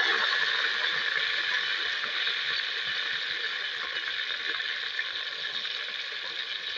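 Seasoning paste (noqos) frying in hot oil in a cast aluminium pot, a dense steady sizzle. It is loudest at the start and slowly eases off.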